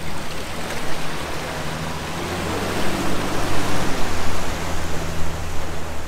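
A small motorboat's engine running with a low, steady hum as it powers away, its propeller churning the lock water into a loud rushing wash that swells about halfway through.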